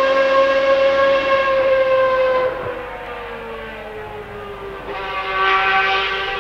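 1995 Ferrari 412 T2 Formula 1 car's 3.0 V12 engine running with a high, steady note. About two and a half seconds in, the pitch sinks and the sound fades, then swells louder again near the end.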